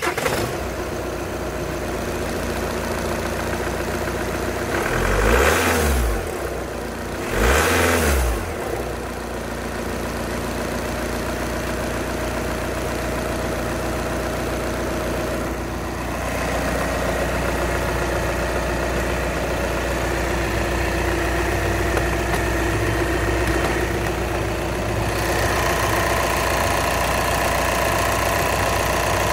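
Volkswagen Passat's TDI turbodiesel four-cylinder engine idling just after starting, revved briefly twice, about five and eight seconds in, each time rising and falling back, then settling into a steady idle.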